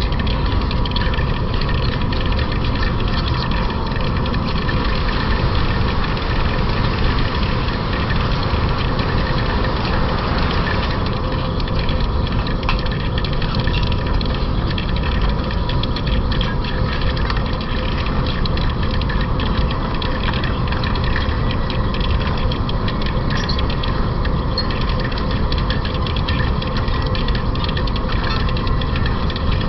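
Metal lathe turning a journal on a 40Kh alloy-steel shaft: the machine runs with a steady hum and a constant tone, over a fine crackle from the cut that grows denser about eleven seconds in.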